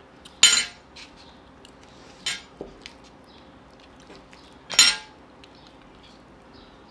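Metal fork clinking against a plate: three sharp, ringing clinks a couple of seconds apart, the third the loudest, with a fainter tap between them.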